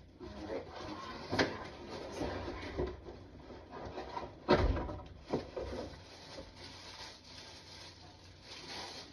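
Packaging and plastic parts being handled while a drink machine is unboxed: rubbing and rustling with a few sharp knocks, and one heavier thump about four and a half seconds in.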